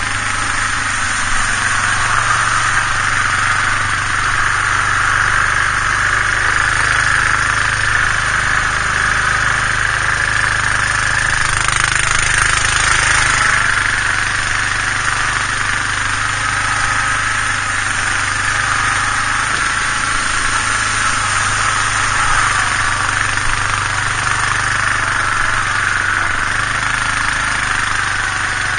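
Yamaha Grizzly 450 ATV's single-cylinder engine running steadily at low speed as the quad wades along a shallow creek.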